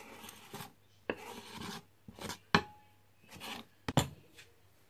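Knife blade scraping diced kohlrabi off a plastic cutting board into a bowl: several short, raspy scrapes, with two sharp knocks, one about halfway through and one near the end.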